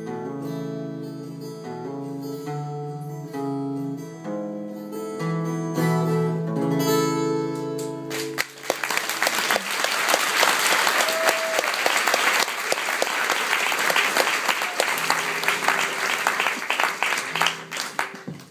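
Solo acoustic guitar picking the closing notes of a song, then audience applause from about eight seconds in that dies away near the end.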